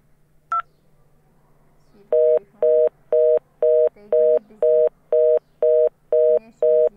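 A simulated IP phone sounds one keypad tone about half a second in, then a busy signal from about two seconds on: a two-tone beep repeating about twice a second. It is busy because the phone has dialed its own number.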